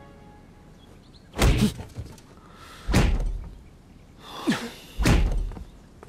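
Four heavy thuds about a second and a half apart: palms striking the side of a large wooden tub full of water.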